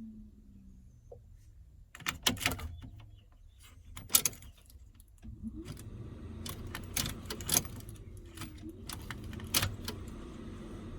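Car keys jangling and the ignition switch clicking in a Holden Commodore VZ, with a steady low hum coming on about five seconds in; the engine does not crank, after a replacement immobiliser module (PIM) has been programmed.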